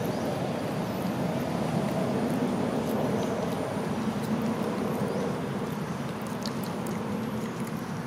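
Steady low engine rumble, as of a motor vehicle running, with a few faint high chirps over it.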